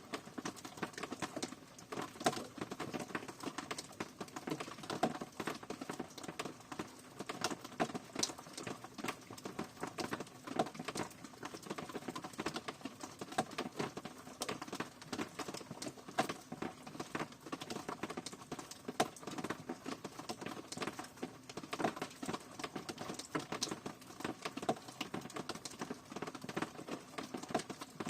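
Rain falling, with a dense run of irregular drops pattering over a steady hiss.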